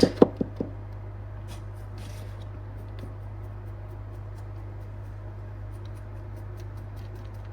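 Flour being sifted through a sieve: faint scratching and a few light ticks and taps, with a few clicks in the first second, over a steady low hum.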